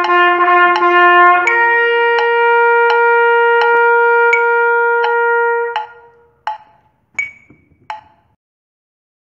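Trumpet playing the end of a rhythmic exercise on open natural tones without the valves. It moves from a lower note up to a final long held note that stops about six seconds in. A metronome click ticks steadily about every 0.7 seconds underneath and runs on for three more ticks after the trumpet stops.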